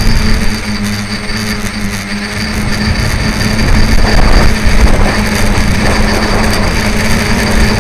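Tricopter's electric motors and propellers buzzing at a steady pitch in flight, with strong wind rumbling on the microphone.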